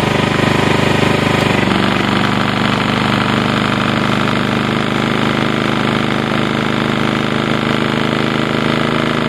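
Ryobi RYi2000 inverter generator's engine running hard under a heavy electrical load of about 1,300 to 1,400 watts, straining. Its tone shifts slightly about a second and a half in, then holds steady.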